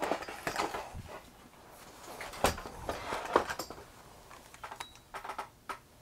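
Handling noise on a wooden workbench: irregular clicks, knocks and rustles as things are picked up and set down, with two sharper knocks near the middle.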